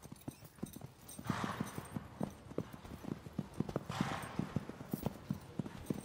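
Lipizzaner stallion's hooves stepping on a sand arena floor: a run of soft, irregular hoofbeats. Two short hissing noises fall among them.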